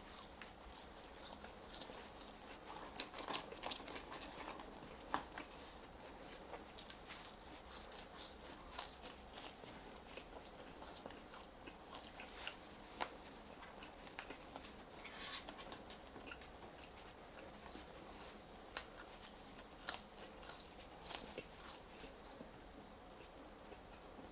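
Close-miked chewing and biting of french fries: irregular soft crunches and wet mouth clicks.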